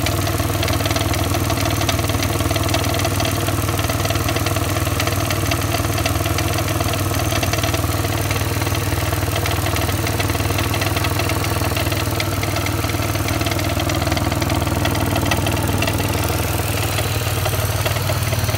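2002 Pontiac engine idling with a steady, rapid clacking over the running hum. The clacking almost sounds like a diesel, and the owner suspected a piston rod.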